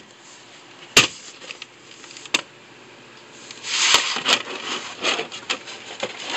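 Plastic VHS clamshell case and cassette being handled: a sharp plastic clack about a second in and another a little later, then a stretch of rubbing and clicking as the cassette is pulled out of the case.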